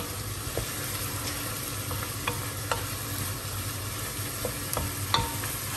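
Diced carrots and celery sizzling in a hot pot on the stove as a wooden spoon stirs them, with a few light knocks of the spoon against the pot.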